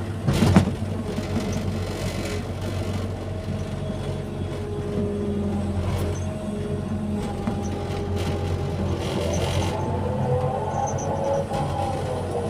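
Excavator's diesel engine running steadily during digging work, with a sharp clunk about half a second in and a higher whine that shifts in pitch over the second half.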